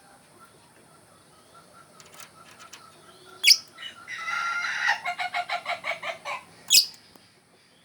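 Lovebird singing: a sharp, shrill squeak about halfway, then a buzzy chattering run of rapid notes at about eight a second, and another shrill squeak near the end.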